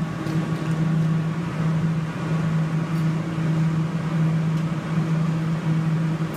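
Claw machine humming steadily with a low, constant tone.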